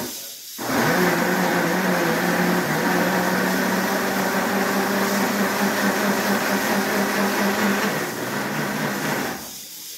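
Red electric countertop blender with a pulp-separating filter insert, blending blackberries with a little water. The motor starts about half a second in with a steady hum, drops a little in pitch around eight seconds, and winds down just before the end.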